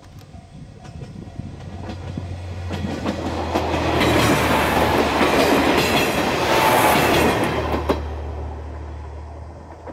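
JR West KiHa 40-series diesel railcar passing close by: its running noise builds, is loudest in the middle, then fades as the train moves away, over a steady low hum.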